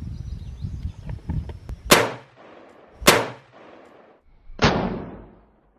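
Three gunshots from a scoped Tec-9 pistol, spaced about a second and a half apart, each with a short echoing tail; the third sounds duller.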